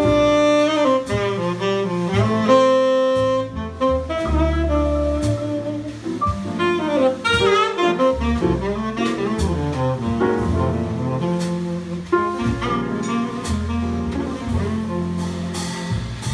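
Live jazz: a tenor saxophone plays melodic phrases over grand piano, upright bass and drums.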